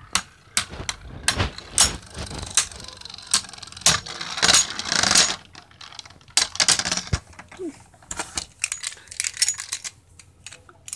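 Beyblade Burst spinning tops battling in a plastic stadium: a long run of sharp, irregular clacks as the tops strike each other and the stadium wall, with a rougher scraping rush about halfway through.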